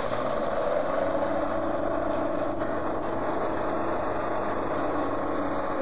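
Heavy engine of demolition machinery running steadily, holding an even pitch with no breaks.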